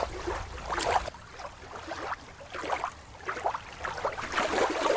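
Water lapping and splashing, with wind rumbling on the microphone for the first second. About a second in, the sound switches to a different recording of light, irregular splashing of sea water.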